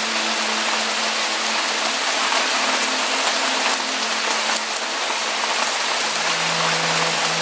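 Steady, dense rainfall hissing evenly, with faint sustained low musical tones underneath that shift to a lower pitch about six seconds in.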